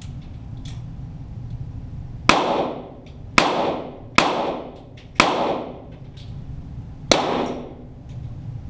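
Five shots from .22 Walther GSP target pistols, heard from downrange, fired at an uneven pace about a second apart with a longer gap before the last. Each crack echoes briefly in the range.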